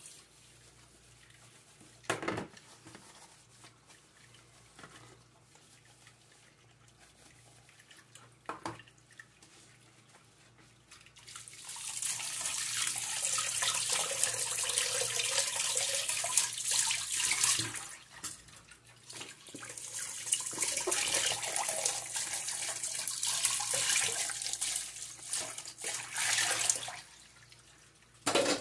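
Tap water running through a hose into a stainless steel sink, splashing over a spoon and the basin as they are rinsed. It runs in two long stretches after a quiet start, with a short break between them. A couple of light knocks of dishes being handled come early, and one more near the end.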